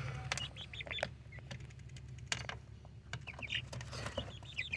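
Young chickens peeping in runs of short, quick, high chirps, with scattered sharp clicks among them.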